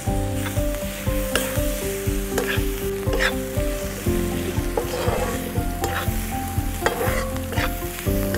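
Chopped onions sizzling in oil in a deep iron tava over a wood fire, browning, while a metal spoon stirs and scrapes the pan about once a second.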